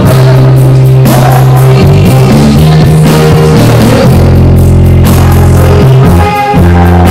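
Loud worship song: a woman singing into a microphone over a Korg keyboard playing sustained bass chords that change every second or so, with a faint steady beat.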